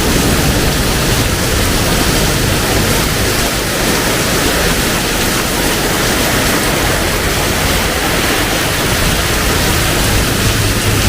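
Heavy tropical rain pouring down steadily, a loud even hiss, with a low rumble underneath near the start and again near the end.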